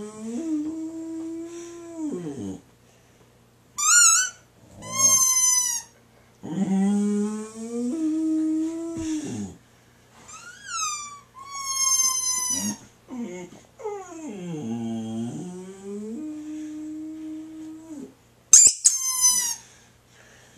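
A squeaky dog toy is squeezed in pairs of short, high squeaks, and a boxer dog answers each time with long, drawn-out howls. The pattern goes three times: howl, squeaks, howl, squeaks, a long wavering howl, then more squeaks near the end.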